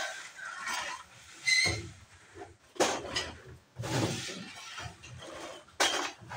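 Glass soft-drink bottles clinking and rattling in plastic crates as the crates are handled, in irregular clatters about a second apart, with a brief high glassy ring near the start.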